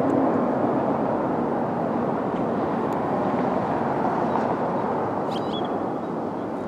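A steady outdoor roar of wide, even noise that slowly fades, with a brief bird chirp about five seconds in.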